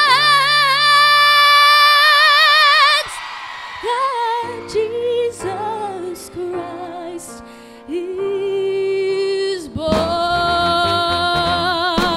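Female solo singer singing into a microphone with vibrato over a musical accompaniment. Long held notes at the start and again from about ten seconds in, with a quieter passage between.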